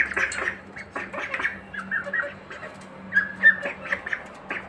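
Young chickens and turkeys peeping in short, high whistled calls in irregular runs, mixed with sharp clicks of beaks pecking feed from a steel bowl.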